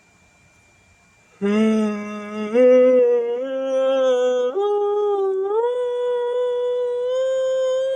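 A person humming a tune: held notes that step and slide up and down in pitch, starting about a second and a half in and cutting off abruptly at the end.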